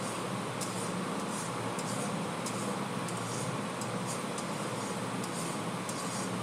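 Spice paste frying in oil in a metal kadai while it is stirred with a spatula: a steady sizzle with short scrapes of the spatula against the pan about every half second, over a steady fan-like hum. The masala is being fried down (kosha) with salt and turmeric.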